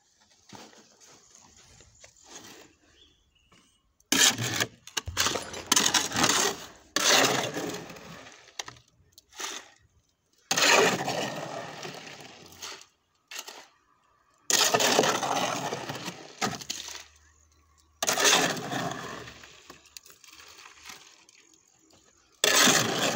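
A hoe scraping and chopping through wet concrete in a metal wheelbarrow: about half a dozen loud, gritty strokes a few seconds apart, each starting sharply and trailing off.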